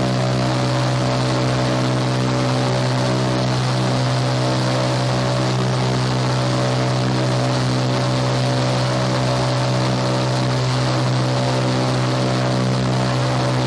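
Indoor skydiving wind tunnel running at flying speed: a steady, loud rush of air over a constant low fan hum.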